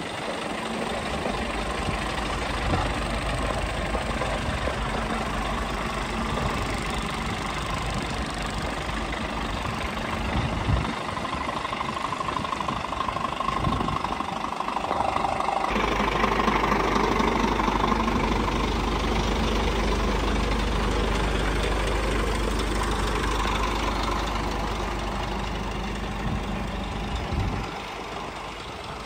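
Scania R440 tractor unit's 13-litre six-cylinder diesel engine idling steadily, its low hum growing louder from a little past halfway and easing near the end.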